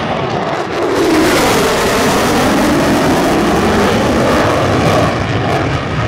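Lockheed Martin F-22 Raptor's twin jet engines in a low, close flyby: a loud, steady rush of jet noise that swells about a second in. A hollow tone sweeps down and then back up as the jet passes.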